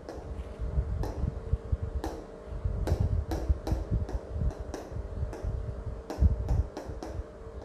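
Marker tip tapping on a whiteboard: sharp ticks at an uneven pace, about one a second at first and two or three a second later, over a low steady hum.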